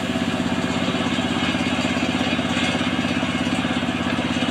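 Engine of a portable circular sawmill running steadily, with an even, rapid pulse.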